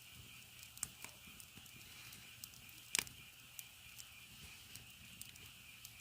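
Wood fire crackling, with irregular sharp pops, the loudest about three seconds in. A steady high chirring of insects runs underneath.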